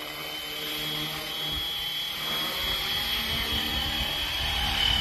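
FlyWing FW450 V3 electric RC helicopter running: a steady high whine from its brushless motor over rotor noise that slowly grows louder.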